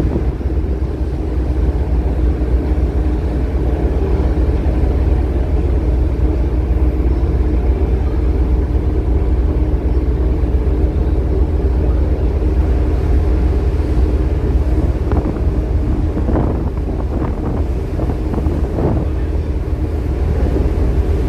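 Ship's engines running with a steady low rumble and hum, with wind buffeting the microphone. A few short knocks come about three-quarters of the way through.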